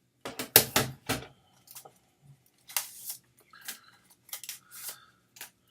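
Hard clicks and rattles of an old Polaroid instant camera and its 600 film being handled: a quick run of sharp clicks in the first second or so, then scattered lighter ticks.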